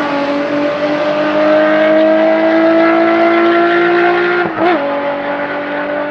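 Porsche 911 SC rally car's air-cooled flat-six pulling hard, its note rising slowly as it accelerates away. About four and a half seconds in there is a quick gearshift, after which the engine runs on at a steady, lower pitch.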